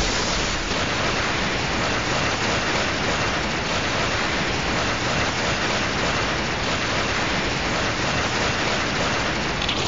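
Steady rain-like hiss, an even wash of noise with no breaks, following a monster roar sound effect.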